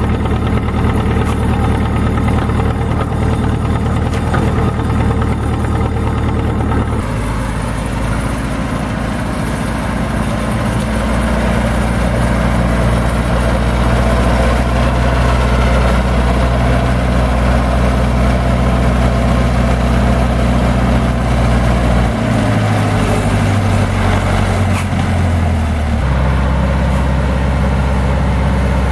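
Zetor 7245 tractor's four-cylinder diesel engine running steadily while powering a timber-trailer crane loading logs. Its note shifts abruptly in pitch and level a few times.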